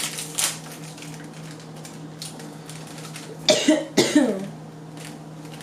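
A girl's voice gives two short cough-like bursts about half a second apart, over a steady low hum.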